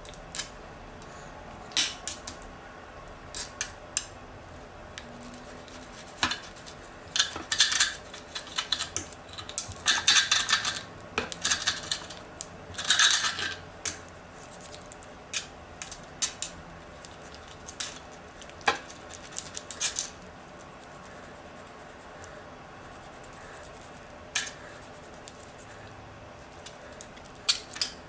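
Kitchen knife cutting pickled meat on a glass cutting board: irregular sharp clicks and short scrapes as the blade meets the glass, coming thick and fast for a few seconds in the middle, then only now and then.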